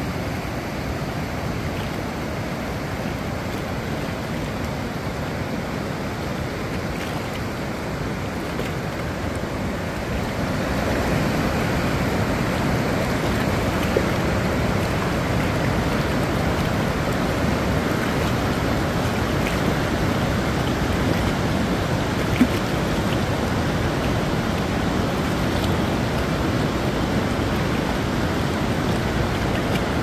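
River water rushing over a low dam and rocky ledges in a steady wash of noise, which grows louder about ten seconds in.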